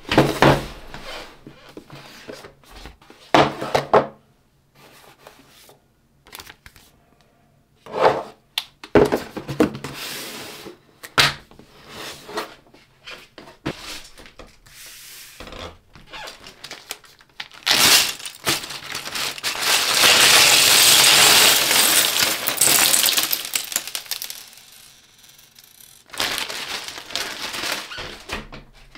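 LEGO pieces and their plastic bags being handled: scattered clicks and clatters of plastic bricks, with about six seconds of loud crinkling and tearing of plastic in the later part.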